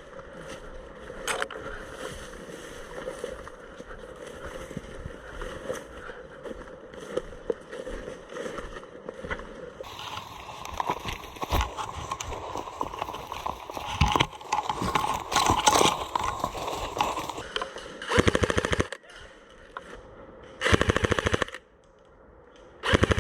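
Airsoft guns firing: scattered single shots, getting busier about ten seconds in, then three rapid full-auto bursts close by near the end, each up to about a second long.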